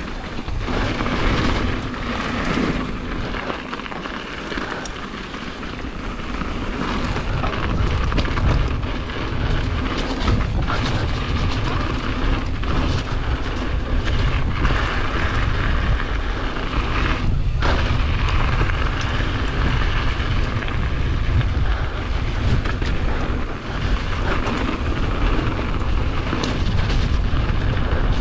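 Mountain bike riding fast down a loose gravel trail: a continuous rumble of tyres over stones with scattered clicks and rattles from the bike, and wind buffeting the microphone. It grows louder a few seconds in as speed builds.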